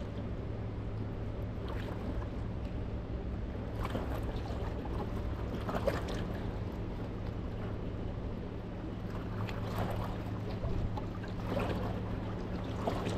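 Riverbank ambience: a steady low hum under water and wind noise, with a few faint knocks.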